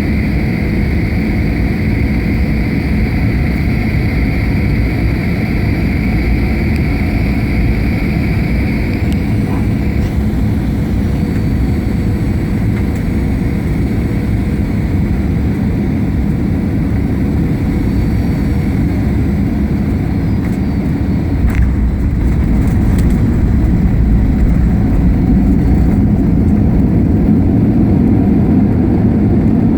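Cabin noise of a Boeing 737 landing, heard from a window seat: a steady loud rumble of engines and rushing air, with a high whine that fades out about a third of the way in. About two-thirds of the way in comes a sharp thump, after which the rumble grows louder, as at touchdown and rollout.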